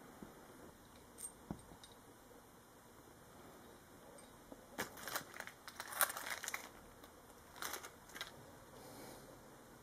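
Faint handling sounds from unpacking a motorcycle slip-on exhaust: a few light clicks, then crisp rustling of packaging and light metallic clinks in two short clusters, about five and about seven and a half seconds in.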